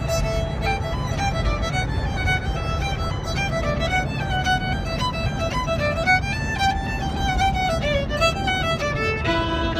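A fiddle playing a quick tune, note after note, over the steady low rumble of the moving van.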